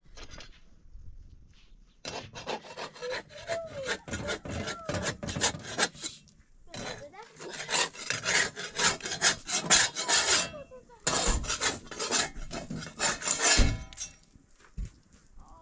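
Flat metal spatula scraping across an iron saj griddle in quick repeated strokes, in three runs with short breaks between them, stopping about two seconds before the end.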